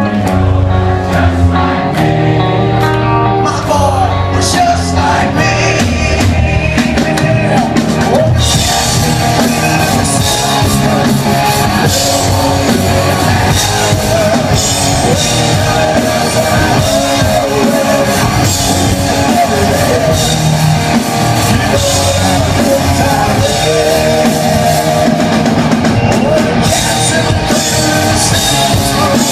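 Live rock band playing loudly with electric guitars, bass and drums. The full drum kit and cymbals come in about eight seconds in, and the band plays on at full volume.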